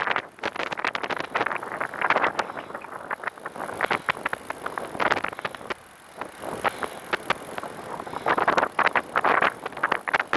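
Recumbent trike rolling along, its tyres and frame giving a rough rushing noise broken by many quick clicks and rattles that swell and fade.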